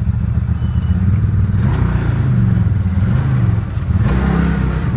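Pickup truck's engine running hard as it drives through a muddy water hole, revving up about two seconds in and again near the end.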